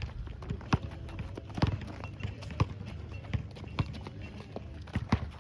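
Basketball bouncing on a hard court floor: sharp, uneven thuds roughly once a second, over a steady low background rumble.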